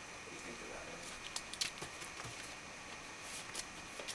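Quiet room with a few faint, soft clicks and rustles from a cat moving about on a carpeted cat-tree perch.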